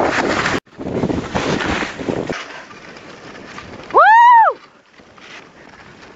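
Wind rushing over the microphone of a camera carried by a skier, cutting off sharply about half a second in and starting again. About four seconds in comes a single loud, high-pitched sound that rises and then falls, lasting about half a second.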